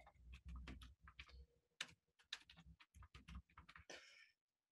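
Faint typing on a computer keyboard: a run of quick, irregular keystrokes.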